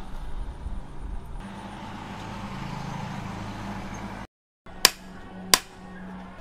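A steady low hum with a rushing noise, then two sharp metal-on-metal strikes at the anvil, about two-thirds of a second apart, as the heated steel blank from a plough disc is worked with tongs and hammer.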